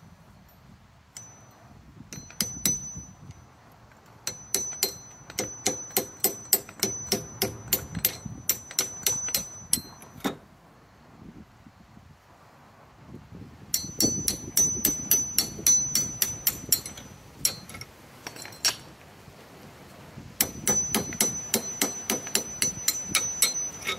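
Hammer tapping an old bolt pushed into the hollow steel tines of a Billy Goat hydro-drive core aerator, knocking packed soil cores out: quick runs of metal-on-metal taps with a high ringing. There are three runs, with a pause of a few seconds about halfway through.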